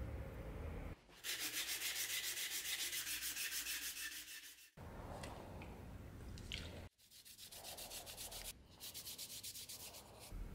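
Quick back-and-forth rubbing strokes, about seven a second: wood being hand-sanded, then, after a break, a solvent-wet cloth scrubbed briskly over the knife's bare steel tang to clean it.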